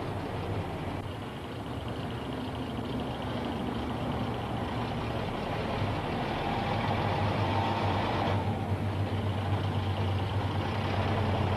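City bus engine running as the bus is driven slowly: a steady low hum with engine noise, and a higher whine that builds over a couple of seconds and stops abruptly about eight seconds in.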